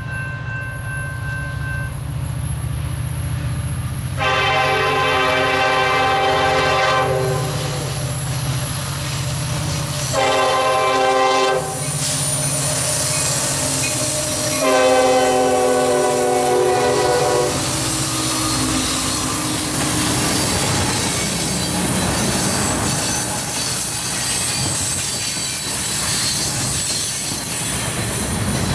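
Nathan K5LLA five-chime horn on Norfolk Southern EMD SD60I diesel locomotives sounding for a grade crossing: a long blast about four seconds in, a short one, then another long one. After the horn, the locomotives pass close by, and loaded flatcars roll past with wheels clattering over the rail joints and squealing.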